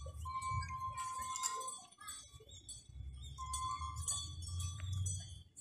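Traditional dance music: jingling, clinking metal percussion with a held high piping note that comes and goes, over a low rumble.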